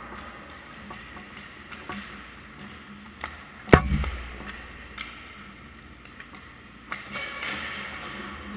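A hard ice hockey puck impact close to the goal a little before the middle, a sharp crack with a low thud and a ringing tail, and a few lighter clicks of sticks and pucks around the rink.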